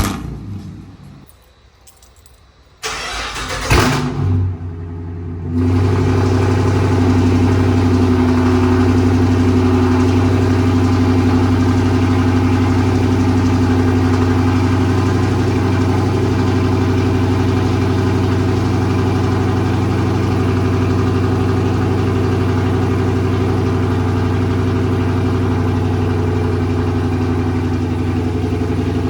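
Dodge Charger R/T's 5.7-litre HEMI V8 starting about three seconds in, flaring briefly, then settling into a steady idle. It breathes through a custom full 3-inch catless exhaust and sounds loud.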